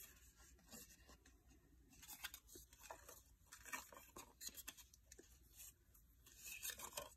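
Faint rustling and light clicks of paper cards and tags being handled and pulled out of a leather planner cover.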